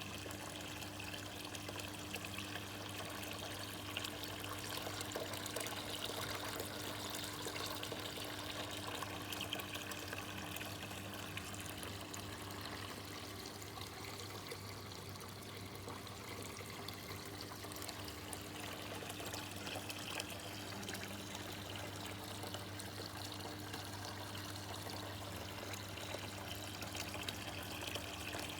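Water trickling and splashing steadily from a Ganesha statue garden fountain, with a faint low hum underneath.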